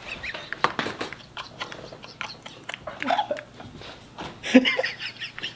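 Two men laughing hard in short, breathless, wheezing bursts, with a louder, higher laugh about four and a half seconds in.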